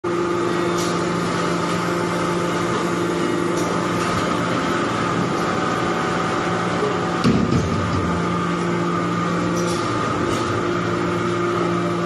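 Steady hum of a hydraulic iron-chip briquetting press running, with a few light clicks and a heavier low clunk about seven seconds in.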